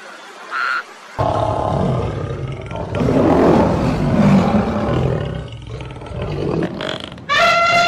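Lioness roaring: deep, rough roars that start about a second in and run for some six seconds. Before them a short frog call; near the end an elephant starts trumpeting, one long high call.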